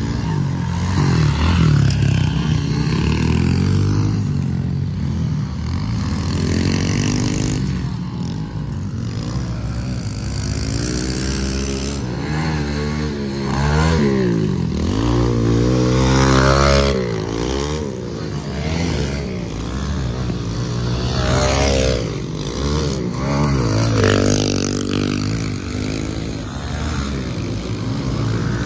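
Small pit bike engines revving up and dropping back again and again as the bikes ride the track, with the pitch rising and falling through the gears. The engine note is loudest when a bike passes close in the middle.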